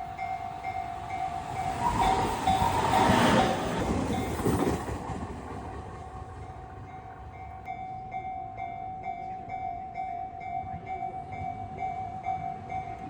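Japanese level-crossing warning bell ringing in a steady repeating tone while a train passes. The train is loudest between about two and five seconds in, then fades, and the bell keeps ringing.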